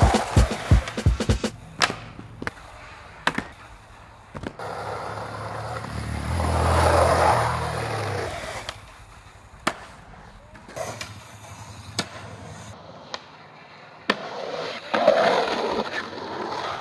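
Skateboards rolling, with sharp clacks of boards popping and landing, several in quick succession near the start and scattered ones later. A louder rolling rumble swells and fades about six to eight seconds in.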